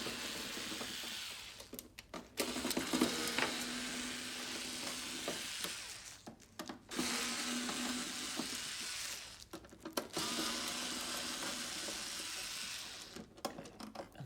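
Electric screwdriver running in several runs of a few seconds each with short pauses between, backing screws out of a television's back panel.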